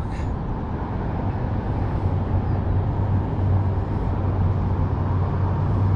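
Steady road traffic noise with a constant low hum.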